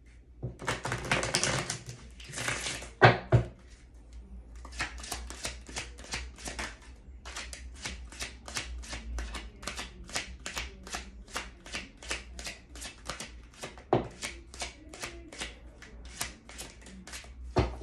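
A deck of cards shuffled by hand. A short rustling riffle comes first, then a long, even run of quick soft slaps, about three a second, as the cards drop from hand to hand, with a few sharper taps.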